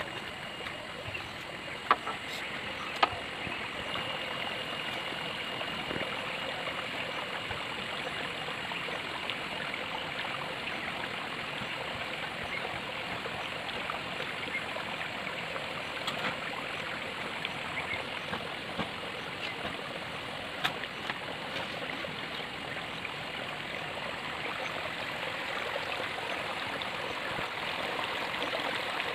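Steady running water, an even rushing sound, with two sharp clicks about two and three seconds in.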